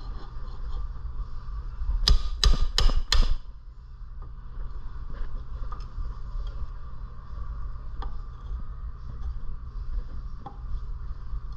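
Four quick hammer blows about two seconds in, struck to knock a stuck flywheel off a Predator 212cc engine's crankshaft, followed by a few faint taps.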